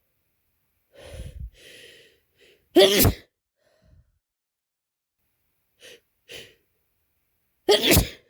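A person with a head cold sneezing twice. Hitching breaths about a second in lead to a loud sneeze near three seconds. Two short sniffs follow, then a second loud sneeze near the end.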